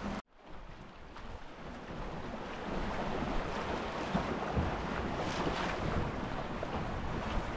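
Wind buffeting the microphone over water rushing along the hull of a small junk-rigged sailboat in a freshening breeze. The sound cuts out for an instant near the start, then comes back and builds up within a couple of seconds.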